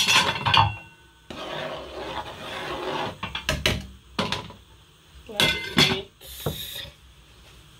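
A metal spoon clanking and scraping in a large aluminium pot as stew is stirred, then the aluminium lid clattering onto the pot near the end. The clanks are short, with brief metallic ringing.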